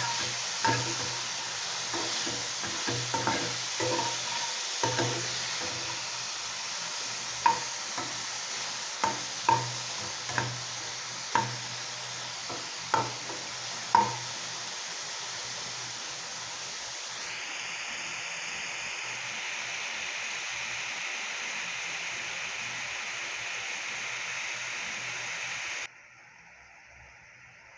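Beef frying in hot oil in a pan: a steady sizzle, with the stirring utensil knocking sharply against the pan about once a second for the first half. Partway through, the sizzle changes tone, and near the end it cuts off abruptly.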